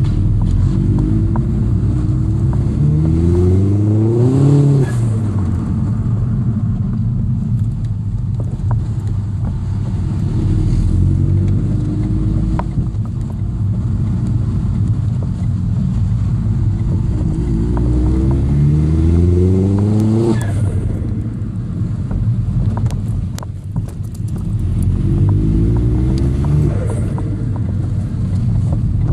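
Vauxhall Astra VXR's turbocharged four-cylinder engine heard from inside the cabin, accelerating three times: each time the engine note climbs for a few seconds and then drops sharply. Steady road and engine rumble runs underneath.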